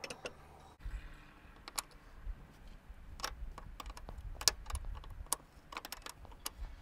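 Irregular small metallic clicks and clinks of a tubing wrench being fitted to and worked on the steel double flare nuts of a brake proportioning valve as they are tightened.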